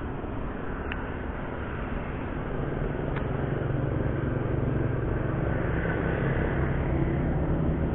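A motorcycle passing on the road, its engine hum swelling from about two and a half seconds in. There are two short clicks earlier.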